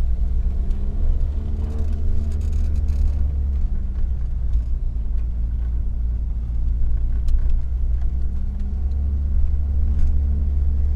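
Opel Calibra being driven, heard from inside its stripped cabin: a loud, deep engine and road rumble, with the engine note rising and falling with the throttle. The exhaust has a hole in it.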